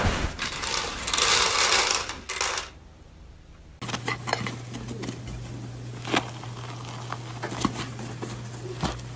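A loud rustling noise of about two and a half seconds as a cat scrambles on a bed sheet. After a short pause, sharp crackling clicks as hands tear apart a chocolate lava cake's crisp crust, over a steady low hum.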